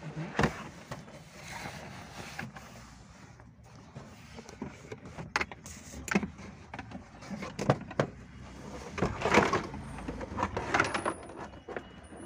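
Irregular clicks, knocks and rattles of hand work on car parts, over a low steady background noise, with the busiest, loudest stretch near the end.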